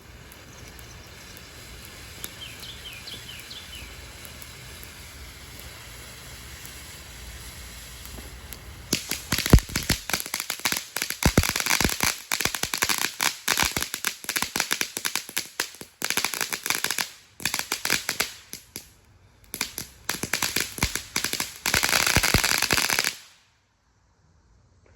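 Consumer firework hissing steadily, then about nine seconds in breaking into dense, rapid crackling that stops briefly twice and cuts off suddenly near the end.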